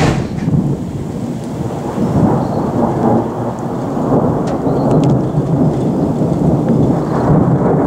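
Thunder rolling on without a break over falling rain during a thunderstorm, after a brief click at the very start.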